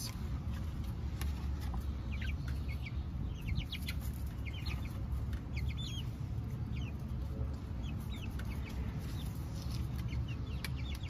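Young chickens (pullets) making short, high peeping calls at irregular intervals, over a steady low rumble.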